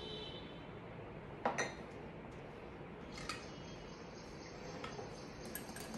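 Glass bowls and a silicone spatula clinking and tapping as curd is scraped out and utensils are set down: a quick pair of sharp clinks about a second and a half in, and a single clink after about three seconds.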